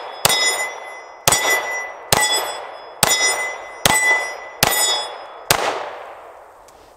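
Glock 43X 9mm pistol fired seven times at a steady pace, about one shot a second. Each shot is followed by the ringing of a struck steel plate target, which dies away before the next shot.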